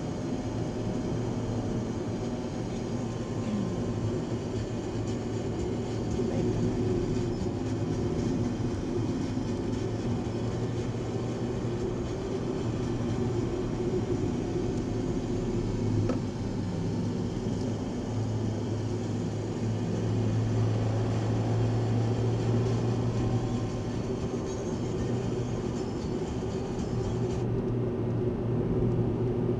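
Car engine and tyre road noise heard from inside the cabin while driving, a steady low hum with no breaks.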